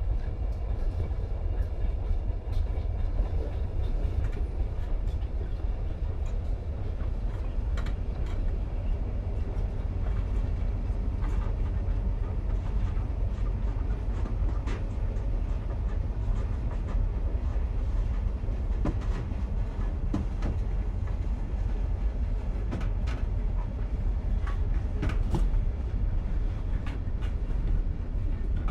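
Interior of a moving commuter train: a steady low rumble of the running train, with scattered short clicks, rattles and faint squeaks from the carriage over the rails.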